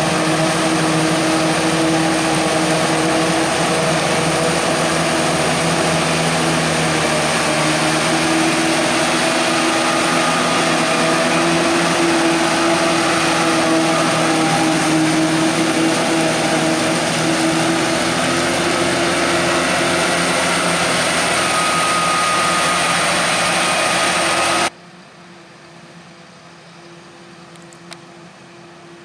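Heavy diesel farm machinery running steadily under load at close range, an even engine drone mixed with a loud hiss. About 25 seconds in it cuts off suddenly to a much quieter steady background, with one short click near the end.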